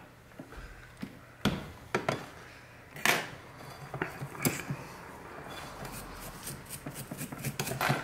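Small tools being picked up and set down on a workbench: scattered sharp clicks and knocks, with a quick run of small clicks near the end.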